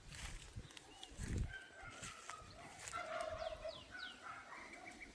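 Farm poultry calling in the background: short, faint calls, with a few quick high falling chirps mid-way and a brief low rumble about a second and a half in.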